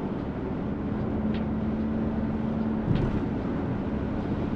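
Road noise of a moving car: a steady rumble of tyres and engine with an even hum, and a couple of faint clicks.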